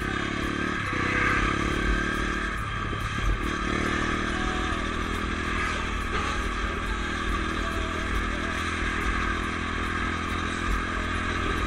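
Dirt bike engine running under way as it is ridden, heard from the rider's position. The engine note breaks briefly about three seconds in, then holds steady.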